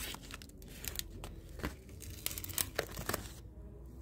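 Irregular crackling and sharp clicks from a wooden stingless-bee hive box being handled, its sticky propolis seal being worked open.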